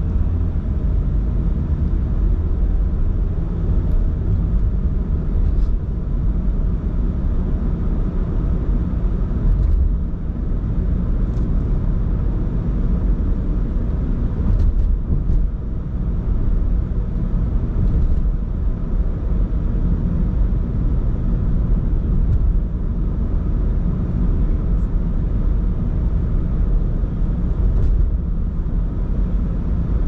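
Steady low rumble of a car driving, with road and engine noise heard from inside the cabin, and a few faint clicks here and there.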